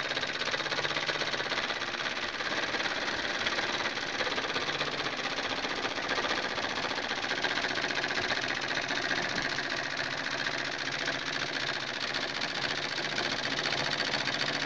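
1969 Wilesco D-5 miniature steam engine running steadily, with a rapid, even chuffing clatter from its cylinder and flywheel.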